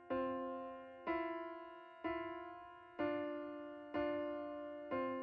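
Piano playing a slow introduction: one soft chord struck about once a second, each left to ring and fade before the next, six chords in all.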